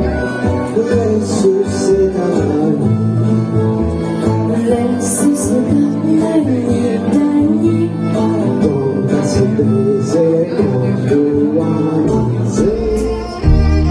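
A live band playing a 1960s-style song, with a guitar-led melody over the band and cymbal hits; the bass and drums grow heavier near the end.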